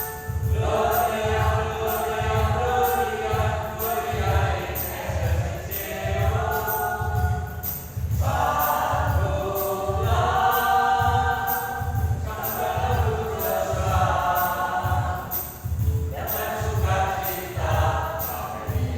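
Senior church choir singing together in sustained phrases, with an accompaniment keeping a steady beat of about two pulses a second.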